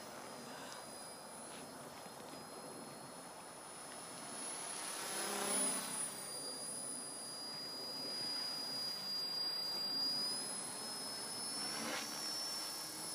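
Mini Titan radio-controlled helicopter flying overhead, a high steady whine from its motor and rotors. About five seconds in it gets louder and its pitch drops as it makes a fast pass.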